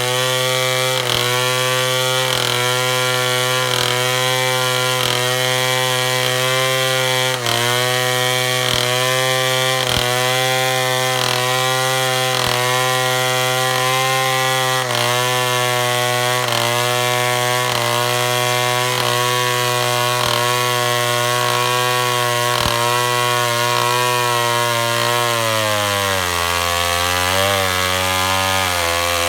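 Two-stroke chainsaw running at high speed while cutting through wood to square a log into a beam, its pitch holding steady. About 25 seconds in, the pitch drops and wavers up and down.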